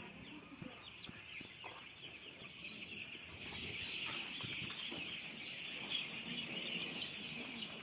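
A large flock of poultry chicks peeping all at once, a dense high-pitched chorus of overlapping cheeps that grows louder about halfway through.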